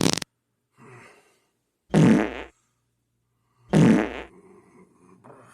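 A run of farts: a faint one about a second in, then two loud, buzzing ones about two and four seconds in, the last trailing off with a rumble.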